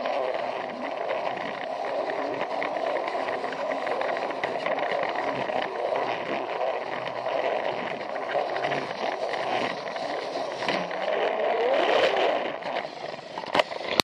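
Plarail toy train's small battery motor and gearbox running steadily, its wheels rattling and ticking over the plastic track, a little louder about three quarters of the way through, with one sharp click near the end.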